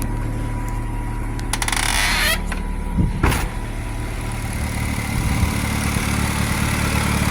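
Turbocharged Honda Civic EJ1 engine idling steadily and smoothly, running well. A brief hiss comes about two seconds in and a couple of knocks about three seconds in.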